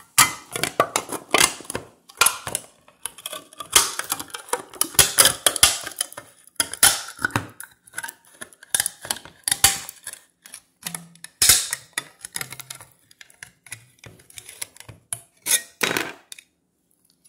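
Kitchen knife blade punching and levering through the lid of a tin can, a fast irregular run of sharp metallic clicks and scrapes as the cut is worked around the rim; it stops about a second before the end.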